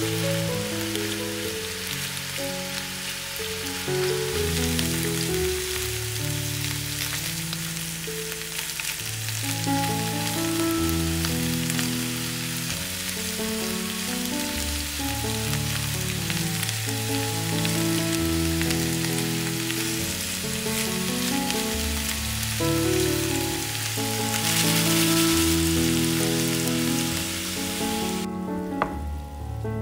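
Cauliflower florets sizzling in vegetable oil in a nonstick frying pan, a steady hiss over soft background music. The sizzling cuts off suddenly near the end, leaving only the music.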